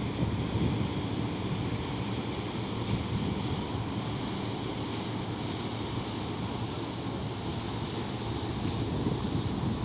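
Steady wind noise buffeting the microphone over a continuous wash of rushing water, with no distinct engine tone.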